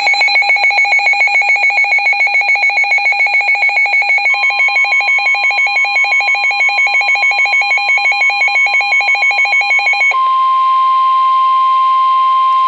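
Electronic alert tones of an Emergency Alert System weather warning: a rapidly pulsing, ringing alarm of a low and a high tone sounding together for about ten seconds, then the steady single-pitch NOAA Weather Radio warning alarm tone, which comes in faintly under the pulsing about four seconds in and is left alone after about ten seconds.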